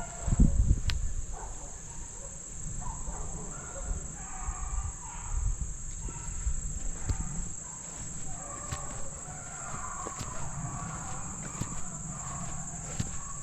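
Steady high drone of insects, with hounds baying in the distance in short, repeated calls; some low rumble about half a second in.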